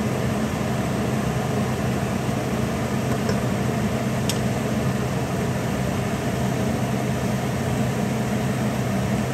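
Steady hum of a kitchen fan motor running, with one light tap about four seconds in.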